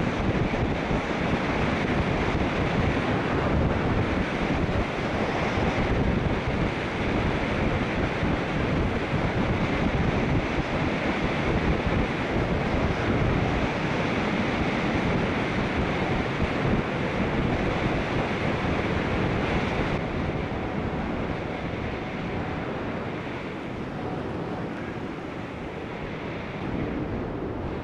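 Wind buffeting the microphone of a rider on a moving bicycle, a steady rush that eases a little about twenty seconds in.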